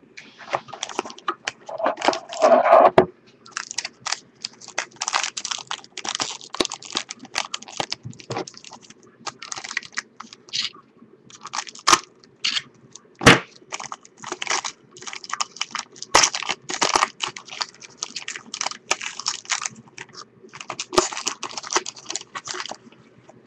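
Foil trading-card pack wrapper crinkling and crackling as it is handled and slit open with a utility knife, with two sharp clicks a little past halfway.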